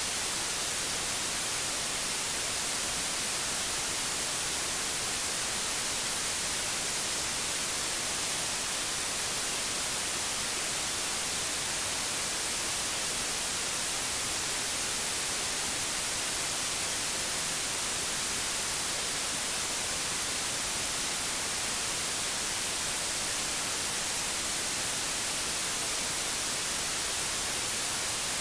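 Synthetic white noise: a steady, even hiss with no change or events.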